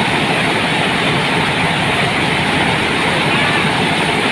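Rice milling machine running, a loud, steady mechanical noise.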